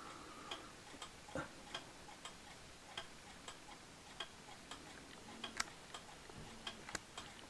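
Faint, steady ticking of a weight-driven, German-made jack-striking wall clock's movement.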